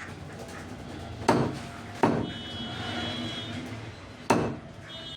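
Knife chopping through a whole chicken on a cutting board: four sharp strikes, about a second in, two seconds in, past four seconds and at the very end.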